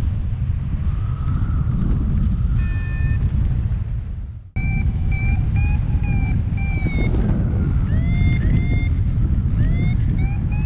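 Heavy wind noise buffeting the camera microphone in flight, with short electronic beeps from a paragliding variometer. The beeps come more often after a brief dropout about four and a half seconds in, some of them rising in pitch, the vario's climb signal.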